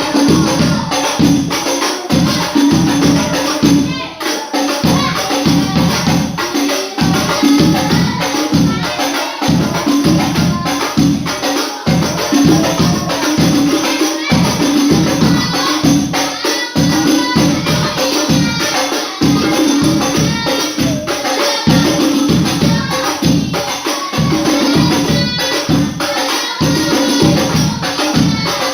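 Sholawat devotional music: rebana frame drums and jingling percussion beaten in a steady, quick rhythm, with voices singing over them.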